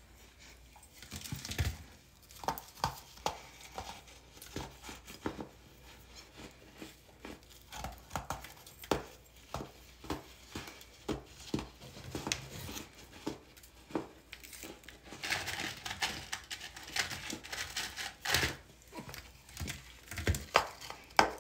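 Hardened baking soda chunks crunching and crumbling as they are bitten, a rapid, irregular run of sharp crackles with a denser stretch of crunching a little past the middle and loud cracks near the end.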